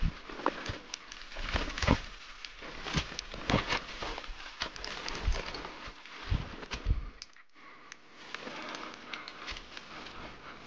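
Footsteps crunching and scuffing through dry fallen leaves and twigs, with irregular crackles and rustling of brush.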